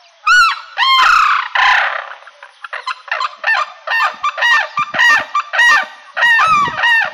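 A pair of sarus cranes giving their unison call, a duet of loud, repeated trumpeting calls, about two a second. The male calls with its wings raised while the female calls bill-up beside it.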